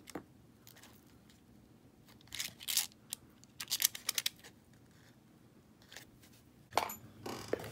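Paper coin-roll wrapper of half dollars crinkling and tearing in short bursts, about two and a half and four seconds in, as the roll is handled and opened. Near the end there is a brief metallic clink of coins.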